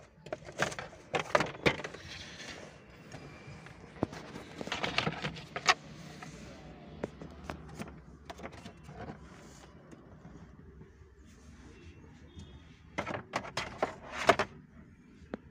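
Scattered clicks, knocks and rattles of hand tools and car interior parts being handled. They come in clusters near the start, about five seconds in and again near the end, with quieter stretches between.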